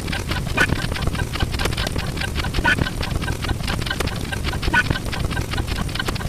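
A looped sound effect: a rapid stream of clicks over a low rumble, with a brighter, call-like sound repeating about every two seconds.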